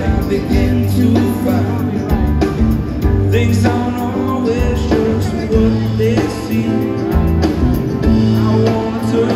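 Live band music played through a concert sound system: strummed acoustic guitar, a bass line, piano and a steady beat, with no lead vocal.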